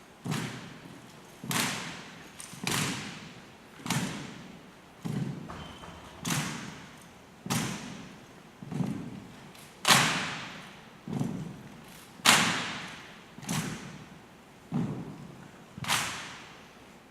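A rifle drill team's cadenced impacts: sharp knocks at a steady beat about every 1.2 seconds, each trailing off in a long echo, with two of the strikes noticeably louder than the rest.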